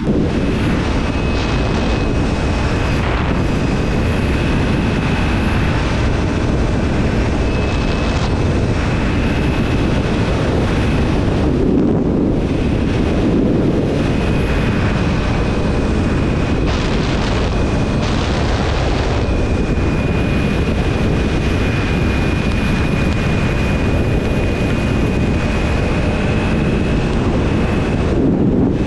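Motorcycle riding at road speed: wind rushes steadily and loudly over the bike-mounted camera's microphone, covering the motorcycle's own running sound. A thin, steady high whine sits above the rush.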